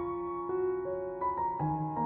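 Background piano music, a slow run of single notes and chords.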